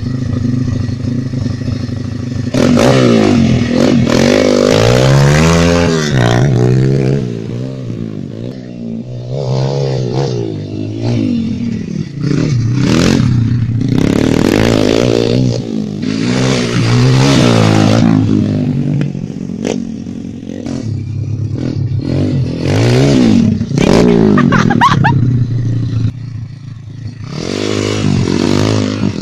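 YCF 140 pit bike with a YX 140 single-cylinder four-stroke engine, idling steadily for the first couple of seconds, then revving up and dropping back again and again as it is ridden.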